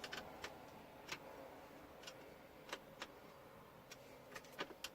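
Faint, irregular clicks and taps of a hand screwdriver and small plastic parts being worked, as the clock spring's screws are snugged by hand.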